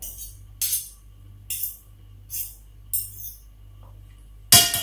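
Eating with a metal spoon and fork on a stainless steel tray: short, sharp scraping and clinking bursts, about one a second, as noodles are twirled and scooped.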